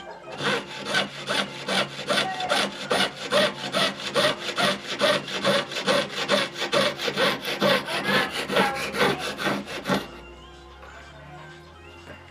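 Jeweller's piercing saw cutting through a small piece of metal on a bench peg, in quick, even up-and-down strokes that stop about ten seconds in.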